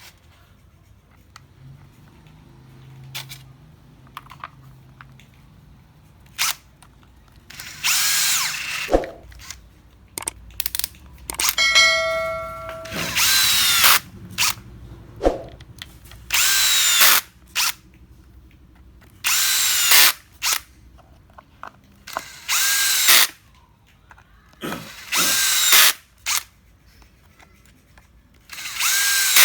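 A cordless power tool motor run in about seven short bursts of roughly a second each, a few seconds apart, each spinning up and winding down. Light clicks and knocks come between the bursts.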